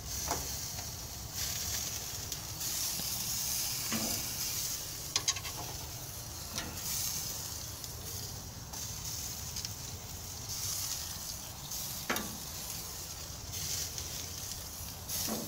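Bell pepper strips sizzling on a hot grill as they are laid on it, a steady hiss that swells now and then. A few sharp clicks of metal tongs are heard.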